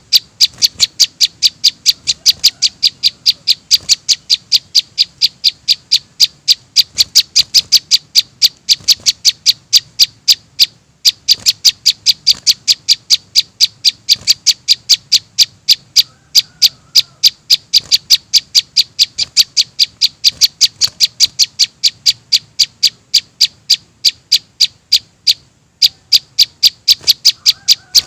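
Bird-lure recording of young prenjak (prinia) calls: short, sharp, high chirps repeated evenly at about four to five a second, with two brief pauses.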